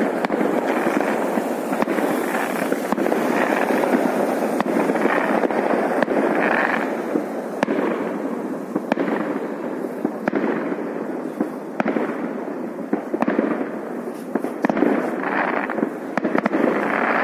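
Fireworks going off without pause: a dense barrage of many bangs and crackles running into one another, with sharper cracks standing out every second or two.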